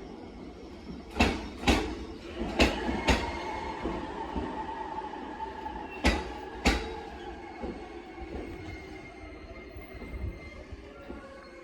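Electric commuter train pulling into a station and slowing: three pairs of wheel clacks over rail joints come further apart, under a whine that slowly falls in pitch.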